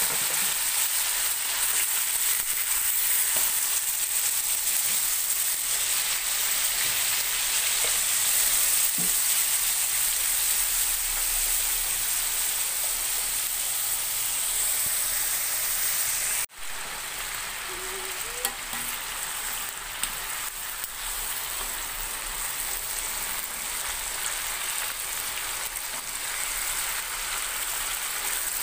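Chicken pieces shallow-frying in oil in a wok: a steady sizzle. It breaks off for an instant about halfway through and goes on a little quieter, with a couple of light clicks soon after.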